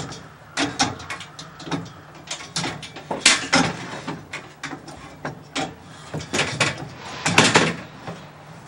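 Metal ATV loading ramps being yanked and shaken in a pickup bed, giving a string of irregular clanks and rattles as they knock against the upright arm and lock pin that hold them; the lock keeps them from coming free.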